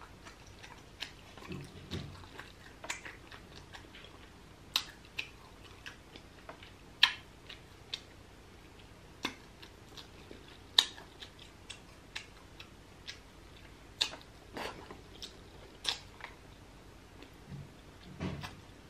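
Close-up chewing of grilled titus (Atlantic mackerel) eaten with the fingers, with many sharp, irregular clicks of mouth sounds and picking at the fish.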